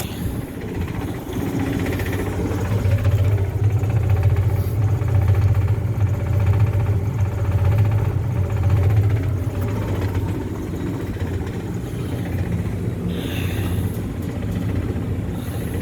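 Rooftop HVAC unit running, a steady low mechanical hum that swells a few seconds in and eases off past the middle.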